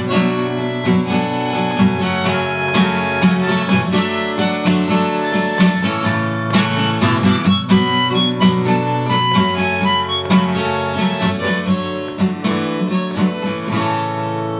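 Harmonica solo played over strummed acoustic guitar.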